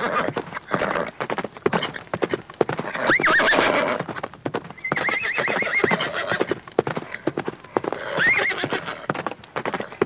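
A horse whinnying about four times, each call wavering in pitch, over a constant clip-clop of hooves.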